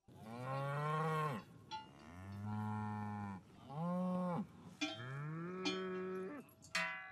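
Cows mooing, four long moos one after another, some overlapping. Near the end the large cowbells the herd wears for the alp descent ring.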